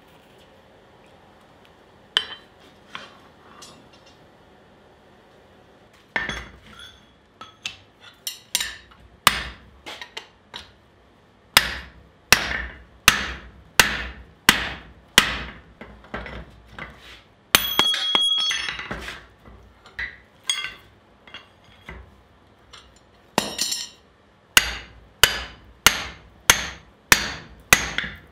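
Hammer blows on a steel drift being driven through the hot eye of a forged pickaxe head, a few scattered strikes at first, then a steady run of about two sharp metallic blows a second. A little past the middle comes a short ringing metallic clatter, before the hammering resumes.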